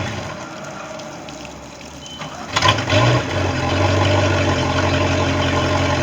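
Bayliner boat engine switched off and running down to quiet. About two and a half seconds in it is started again, catching almost at once with a short rise in revs, then settling back to a steady idle.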